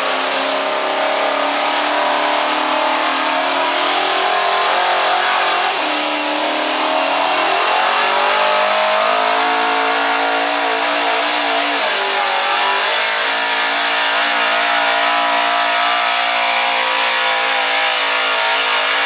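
Chevrolet square-body pickup's gas engine running at full throttle while pulling a weight-transfer sled, with a continuous loud engine note. Its pitch climbs about a third of the way in, dips briefly past the middle, then climbs again.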